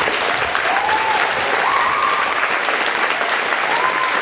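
Audience applauding steadily, with a few short high cheers rising above the clapping.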